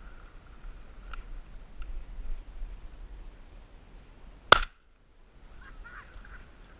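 A single shotgun shot about four and a half seconds in, over a low wind rumble on the microphone.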